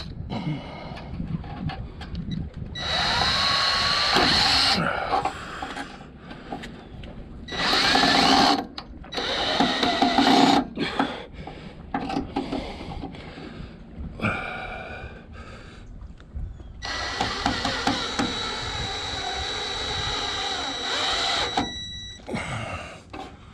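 Cordless drill running in several bursts against the boat lift's overhead metal beam, with a steady high motor whine and one run rising in pitch as it spins up. The longest run, about five seconds, comes near the end.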